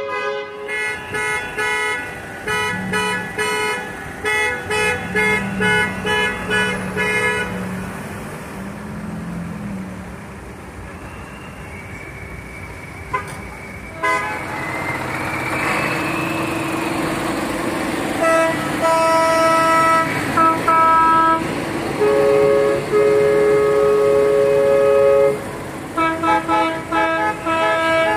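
Car and van horns honking in a vehicle convoy. First come rapid, rhythmic short toots, then a quieter stretch of traffic. About halfway through, long held blasts start on several different pitches, and short toots return near the end.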